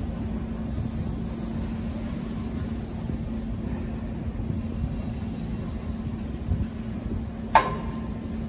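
Electric four-directional reach truck running with a steady hum and low rumble, with one sharp knock and a short ring about seven and a half seconds in.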